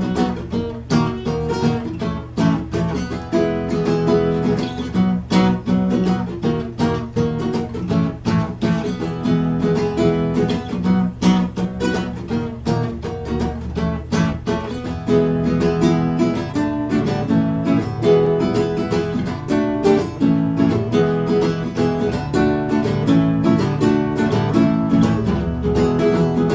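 Solo acoustic guitar playing an instrumental passage of a song, strummed chords with closely spaced strokes, without singing.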